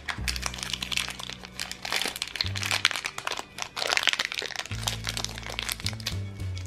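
A thin wrapper crinkling and crackling as fingers tear it open and peel it off a small plastic Shopkins toy figure, over background music with low sustained notes.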